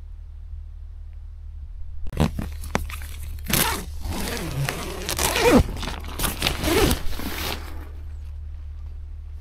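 Tent door zip being pulled open, with the nylon tent fabric rustling, in a rasping, scraping run of about six seconds that starts about two seconds in.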